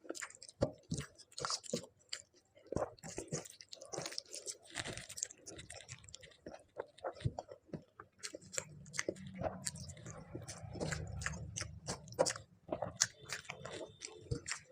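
A person chewing and eating close to the microphone: a run of short, irregular mouth clicks and crunches. A low, steady hum runs underneath for a few seconds in the middle.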